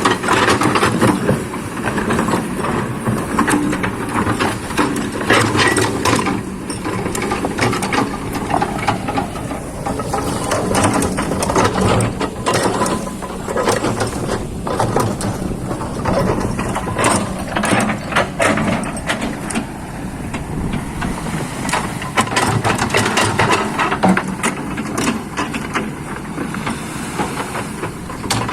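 Excavator working: its diesel engine running steadily under many irregular knocks and clanks of metal throughout.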